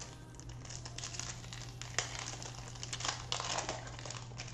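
Plastic wrapper of a Prizm Monopoly trading-card pack crinkling and tearing as it is opened by hand. The crinkles come in irregular bursts, loudest about halfway through and again near three-quarters of the way.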